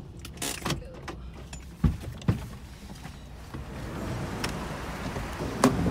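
Car door being opened: several latch and handle clicks and knocks, then the steady hiss of traffic outside coming in as the door opens, with two sharp knocks near the end.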